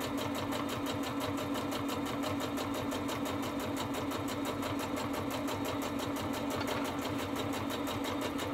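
Electric sewing machine running fast as it top-stitches the edge of a fabric mask: a steady motor hum under a rapid, even clatter of needle strokes.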